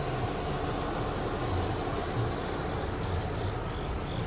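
Steady low rumble of a 1993 Mercedes-Benz 300CE's engine idling.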